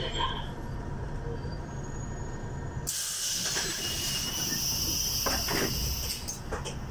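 City bus's pneumatic door system letting out a sudden hiss of compressed air about three seconds in, lasting a few seconds with a couple of knocks as the doors work, over the bus engine's low steady running.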